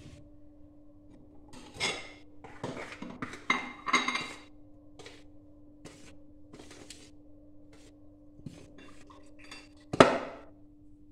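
Dishes and cutlery clinking and knocking as kitchenware is handled, with a cluster of clatters about two to four seconds in and one louder knock near the end, over a steady low hum.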